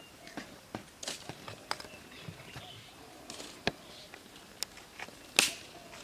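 Scattered sharp clicks, knocks and rustles of stones and gravel shifting under bare feet and hands on rocky ground. The loudest is a single sharp crack near the end.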